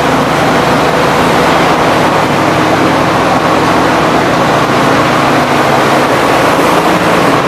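Sugarcane crushing mill machinery running with a loud, steady din and an even low hum.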